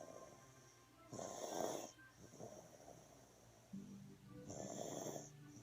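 A baby with a bad cough snoring in her sleep: two louder noisy breaths, about a second in and about four and a half seconds in, each followed by a softer one.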